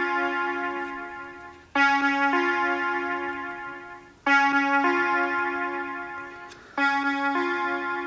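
iPhone alarm app's alarm tone ringing: a two-note electric-piano chime struck about every two and a half seconds, each ring dying away before the next.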